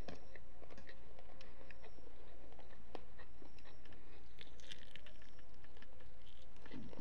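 A person chewing and biting food, with scattered small clicks and crunches.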